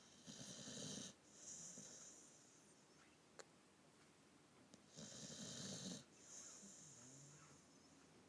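Boxer dog snoring in deep sleep: two snores about four and a half seconds apart, each a rattling breath followed by a softer hissing breath.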